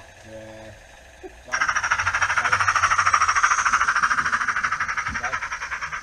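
Small live-steam garden-railway locomotive chuffing fast and evenly, with hissing exhaust beats about eight to ten a second; it starts suddenly about one and a half seconds in.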